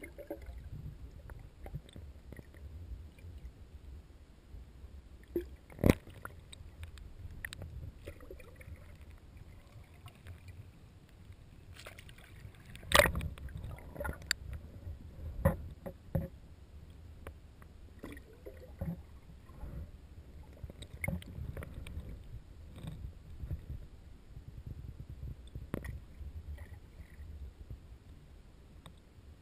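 Water heard through a camera's waterproof housing held underwater beside a kayak: a muffled low rumble, with scattered sharp knocks and clicks. The loudest knocks come about six and thirteen seconds in.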